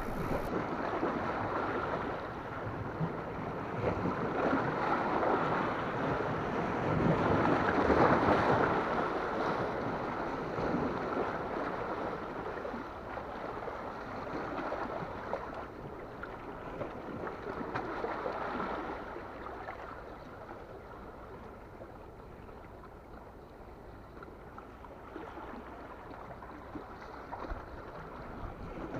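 Sea waves washing against shore rocks, a rushing noise that swells loudest about eight seconds in, swells again more gently near the middle, then eases off, with some wind on the microphone.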